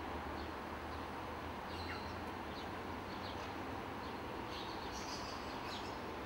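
Small birds chirping now and then, short high calls scattered over a steady outdoor background hum.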